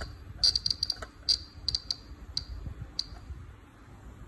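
About a dozen sharp, irregular clicks from the rotary encoder on a DIY spot welder's controller as it is turned to change the motor speed setting. The clicks come in quick runs, then thin out and stop about three seconds in.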